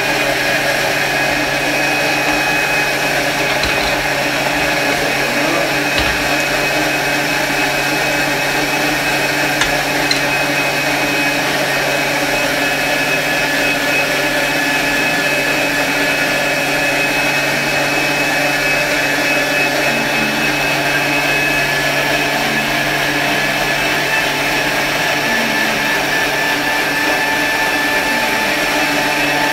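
Thermomix food processor blending onion sauce at a steady high speed: an even motor whine with a low hum underneath, holding the same pitch throughout.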